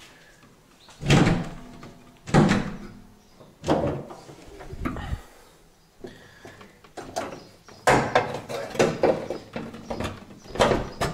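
Daewoo Nexia's bonnet being opened: two loud clunks about a second and two and a half seconds in, a few lighter knocks, then a quick run of knocks and clicks near the end.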